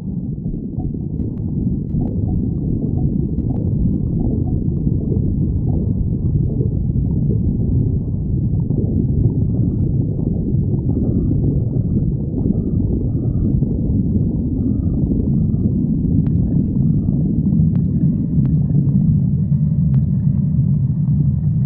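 A person's stomach growling and gurgling without a break, low rumbling that turns into a steadier, pitched growl near the end.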